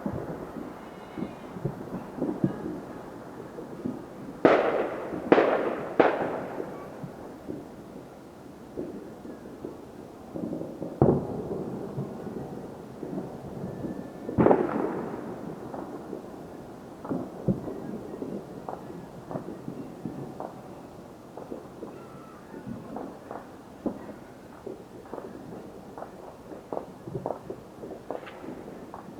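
Fireworks and firecrackers going off: three loud booms in quick succession about four seconds in, each trailing off in a rumble, two more single booms later, and a scatter of smaller pops that grows thicker toward the end.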